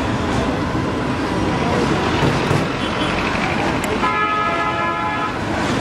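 Street traffic noise, with a vehicle horn sounding one steady blast of a little over a second about two-thirds of the way in.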